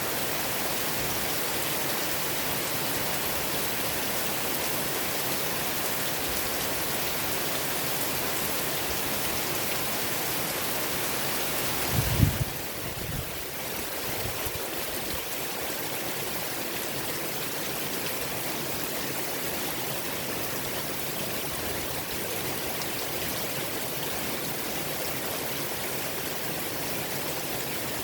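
Steady rain falling, an even hiss, with one brief low thump near the middle.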